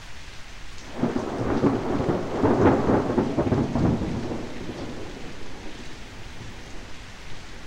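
Steady rain with a roll of thunder that swells suddenly about a second in, is loudest a couple of seconds later and fades away over the next few seconds.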